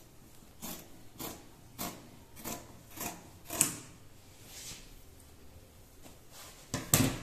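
Fabric scissors snipping through layered cloth while cutting a curved corner, a short cut roughly every half second or so, followed by a louder knock near the end.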